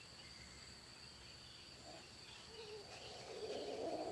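Faint outdoor ambience with a steady high insect trill; from about two seconds in, a faint low rough sound swells toward the end.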